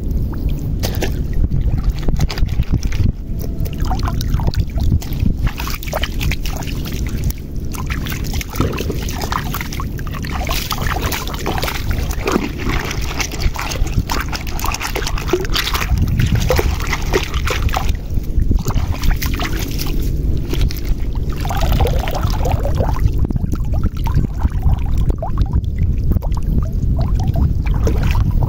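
Mesh net bag full of shellfish being swished and dunked in shallow seawater to rinse the catch: continuous sloshing and splashing, with a steady low rumble underneath.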